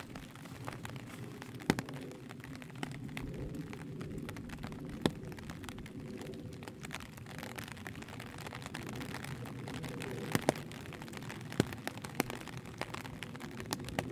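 Steady rain with a low rushing background, and every few seconds a single sharp drop hitting close by, irregularly spaced.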